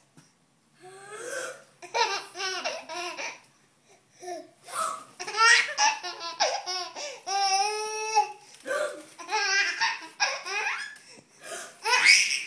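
Baby boy laughing hard in repeated bursts of belly laughter, with a long high squeal of laughter near the middle. Short, sharp gasping breaths from his baby sister come in between.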